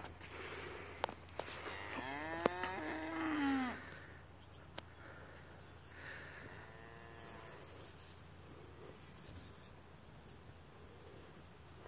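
Cattle mooing: one loud, drawn-out moo that rises and then falls in pitch about two seconds in, then a fainter moo about six seconds in. A steady high insect buzz runs underneath.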